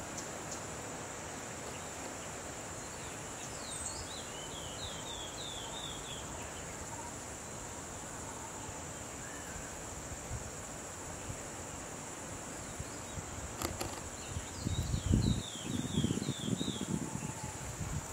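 Steady high drone of insects, with a bird calling a quick run of short descending notes twice. Near the end, loud bursts of low rumble and rustle come in.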